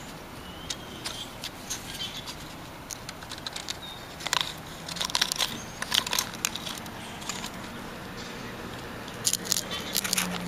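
Grey squirrel cracking and chewing a peanut shell: irregular sharp crackling clicks, coming in clusters around the middle and again near the end.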